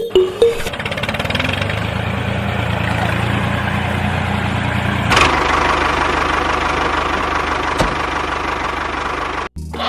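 An engine running steadily at idle; its tone changes about five seconds in, and it cuts out briefly near the end.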